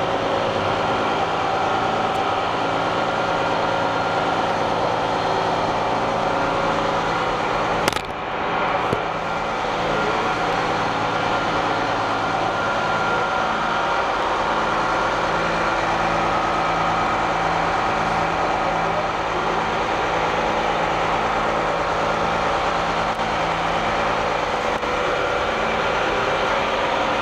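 A steady mechanical drone with a low pulsing hum, and one sharp knock about eight seconds in.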